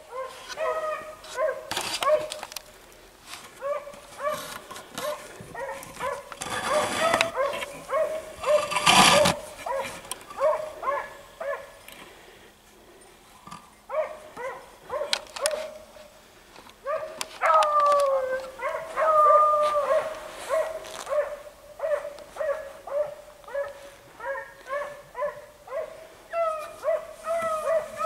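Beagles baying on a rabbit's scent, a steady run of short barks with a couple of longer, wavering howls a little past the middle. A loud rush of noise cuts across the baying about a quarter of the way in.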